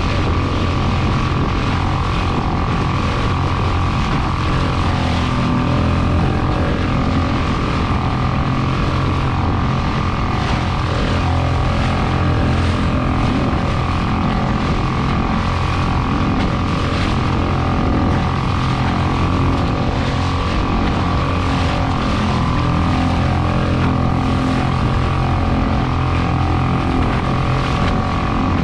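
A motor running steadily with a constant hum, holding the same pitch throughout.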